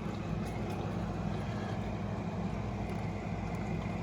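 Steady low mechanical hum, with a few faint light clicks.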